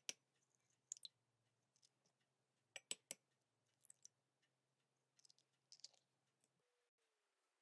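Faint scattered clicks and taps of small hard objects. The sharpest come at the start, about a second in, and as a close pair around three seconds, followed by softer clusters.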